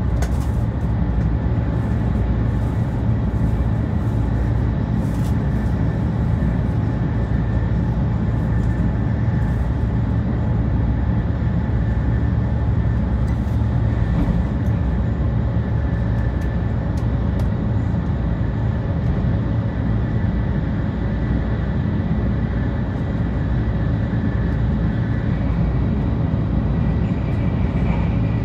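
Running noise of a 500 series Shinkansen at speed, heard inside the passenger car: a steady low rumble with faint steady whining tones above it.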